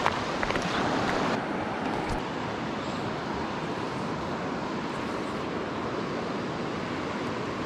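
Steady rush of a river flowing over stones. In the first second or so, footsteps crunch on river gravel, then the sound drops abruptly.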